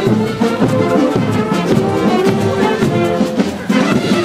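Brass band playing, with trumpets and trombones carrying held notes over a steady beat.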